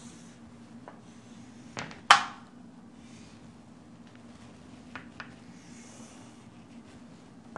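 Chalk on a chalkboard while a triangle is drawn: one sharp tap of the chalk against the board about two seconds in, a few lighter taps, and faint scratchy chalk strokes, over a steady low hum.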